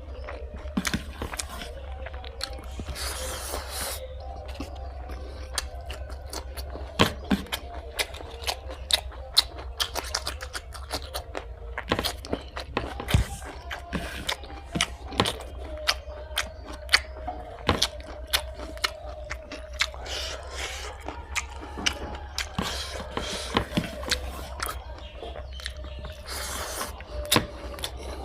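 Close-up chewing and eating sounds: wet mouth smacks, bites and crunches on fried pork and rice, coming in frequent sharp clicks. A steady low hum runs underneath.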